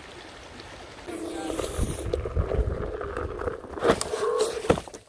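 Creek water running over a small drop. About a second in it gives way to louder riding noise from a Onewheel on a dirt trail, wind buffeting the microphone, with two sharp knocks near the end.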